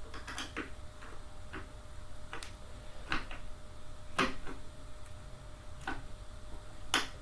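Irregular sharp metallic clicks, roughly one every half second to second, from a hand tool working screws into a chair's metal parts during assembly.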